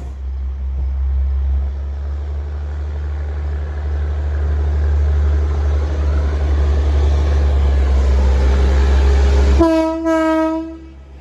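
A train rumbles steadily and low. Near the end a locomotive air horn sounds two short blasts in quick succession.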